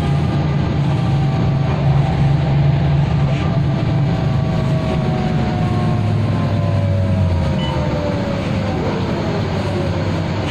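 Mercedes-Benz O405G articulated bus's ZF gearbox howling, heard inside the cabin: a loud, long-drawn whine of several tones that slowly falls in pitch as the bus slows, over the low drone of the engine.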